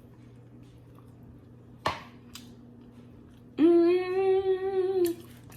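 A person hums one steady, held 'mmm' for about a second and a half, starting past the middle. A single sharp click comes about two seconds in.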